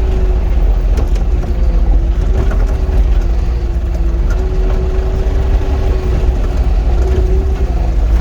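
Cat 259 skid steer's diesel engine running steadily under load as the machine drives over rough ground: a loud low rumble with a steady whine above it that wavers slightly, and a few light knocks.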